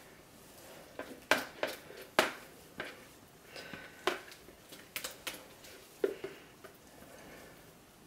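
A spatula scraping soap batter out of a container, knocking against its sides in about a dozen irregular sharp clicks.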